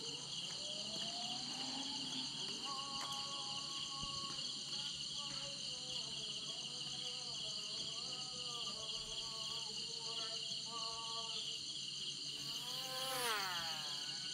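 Steady, pulsing chorus of crickets and other insects in the pre-dawn dark. Over it, a distant melodic line of long, drawn-out, wavering notes, with a falling glide near the end.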